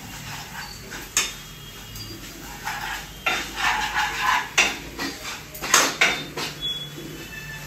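Steel ladle scraping and knocking against a nonstick kadhai as a spice masala is stirred while it cooks in oil. There is a longer run of scraping in the middle and a few sharp knocks after it.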